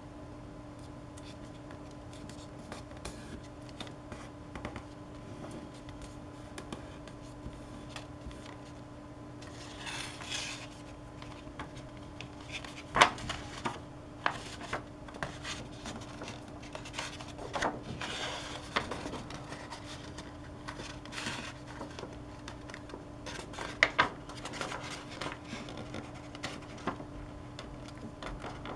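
A sheet of origami paper being folded and creased by hand: scattered rustles and scrapes of paper, with a few sharper snaps or taps as creases are pressed down, the loudest about halfway through and again later on.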